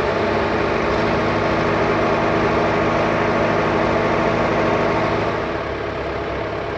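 JCB 4DX backhoe loader's diesel engine running steadily as the machine is driven, its note easing slightly about five seconds in.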